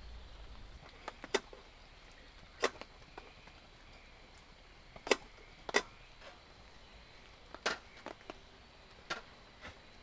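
Irregular sharp knocks and clicks, about six loud ones with fainter ones between, over a faint steady background hiss.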